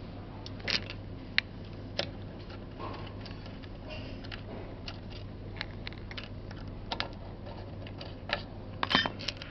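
Scattered small metallic clicks and taps as screws are loosened and handled on a zipper slider assembly machine, with a quick cluster of clicks near the end, over a steady low hum.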